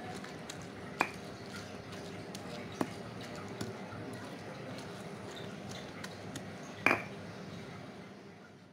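Stone pestle crushing and grinding chillies and tomato in a stone mortar (ulekan and cobek): a steady mashing with three sharp stone-on-stone knocks, the loudest about seven seconds in. The grinding dies away near the end.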